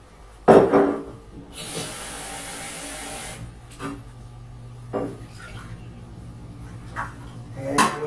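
A loud clatter of dishes, then water running for about two seconds as a cup of water is measured out at the kitchen sink, followed by a few light knocks of dishes.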